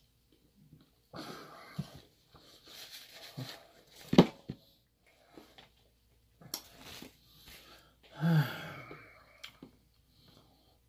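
Close-up mouth sounds of a person eating frosted cake: soft chewing and heavy breaths, with a sharp click about four seconds in and a loud, voiced, sighing breath about eight seconds in.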